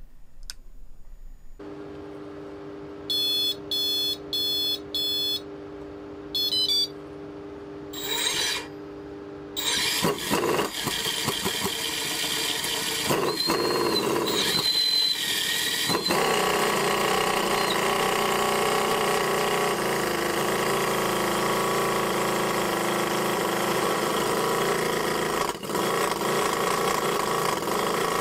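Electronic beeps from the brushless electric starter's motor controller, then the starter spins the Enjomor GS-V8, a 78cc four-stroke DOHC model V8 engine; it catches about ten seconds in and keeps running steadily.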